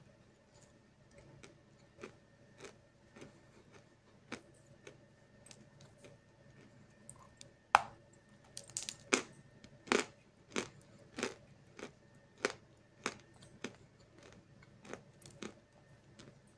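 A lump of Snezhok chalk is bitten with one sharp crack about eight seconds in, then chewed with steady crunches, about one and a half a second. A few faint mouth clicks come before the bite.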